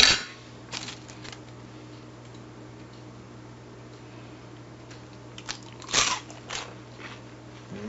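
Crunching bites into a crispy fried lumpia (spring roll): a few scattered crunches, the loudest about six seconds in. A sharp click comes right at the start, and a steady low hum runs underneath.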